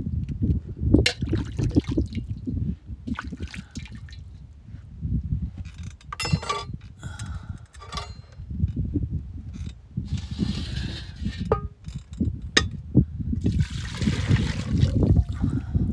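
Wind rumbling on the microphone, with clatters, knocks and scrapes of a metal frying pan being handled. Two short rushes of hiss come through about ten and fourteen seconds in.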